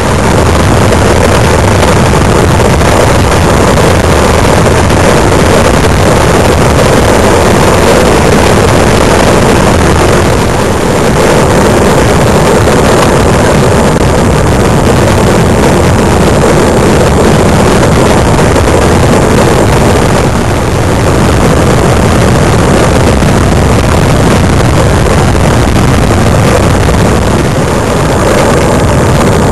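Wind rushing over the microphone of a camera on a moving bicycle, with road noise underneath. The loud, even rushing eases a little about ten seconds in and again about twenty seconds in.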